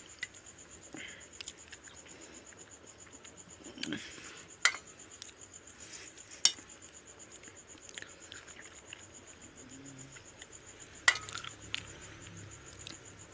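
Close-up eating sounds of a man eating rice and fish curry by hand: soft chewing and mouth sounds with three sharp clicks, the loudest about 11 seconds in. A steady, high, fast-pulsing buzz runs underneath.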